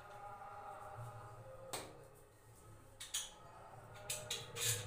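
Metal parts of a connecting rod clinking and tapping as its big-end cap is handled and taken off by hand. There is a single click about two seconds in, a couple around three seconds, and a quick run of clicks near the end.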